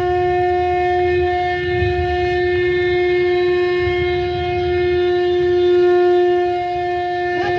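A conch shell (shankh) blown in one long, unbroken note that holds a steady pitch, over a low rumble.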